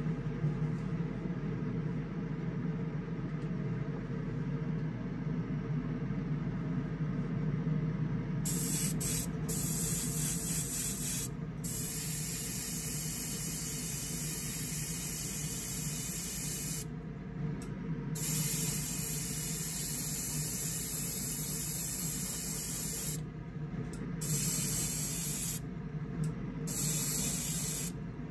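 Iwata gravity-feed airbrush spraying thinned paint: a high, steady hiss of air and paint that starts about a third of the way in and comes in several long bursts with short pauses between, as the trigger is pulled and released. A steady low hum runs underneath throughout.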